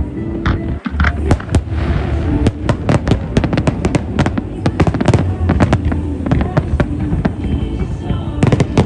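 Fireworks display: a dense, continuous run of sharp bangs and crackles, several a second, over a steady low rumble.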